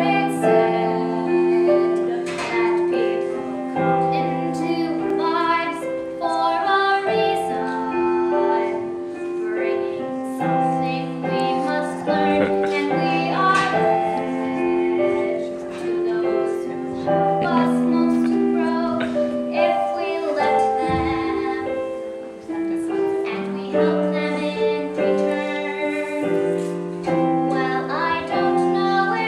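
A girl's voice singing a slow song with piano accompaniment, long held notes.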